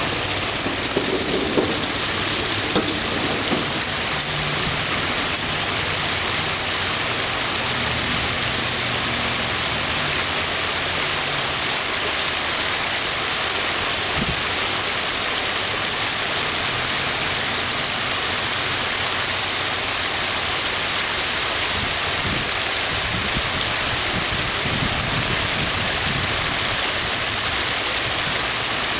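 Shallow creek water running over rocks: a steady rushing hiss.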